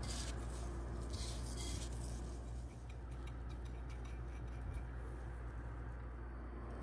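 Faint crackly rustling of dry flattened-rice crumbs as hands press and roll a ball in them, mostly in the first couple of seconds, over a steady low hum.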